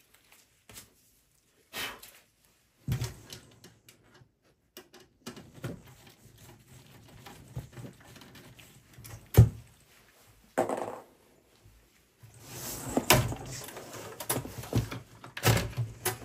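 Screwdriver and hands working on the steel case and power supply of a Dell Inspiron 3020 desktop: scattered clicks and knocks as the power supply's rear screws are taken out, with one sharp click about nine seconds in. Near the end comes a longer stretch of scraping and clunking as the power supply is slid out of the chassis.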